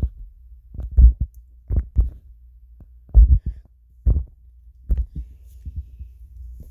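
About a dozen irregular, dull knocks and thumps, heaviest in the bass, over a steady low hum.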